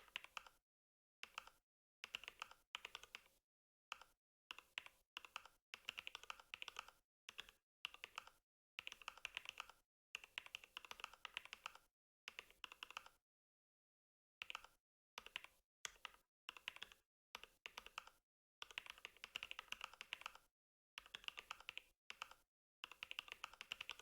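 Mechanical keyboard with a deep "thocc" sound being typed on in fast runs of keystrokes, each run lasting up to about two seconds, with short silent pauses between runs.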